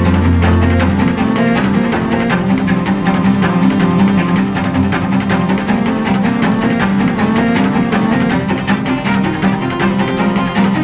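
Bowed cello playing a fast run of low notes, with a deep held note underneath in the first second.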